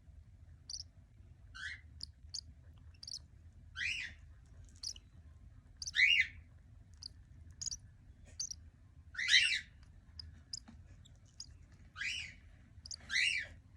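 Cockatiel calling: short high chirps repeated about once a second, with louder, longer calls breaking in every two to three seconds.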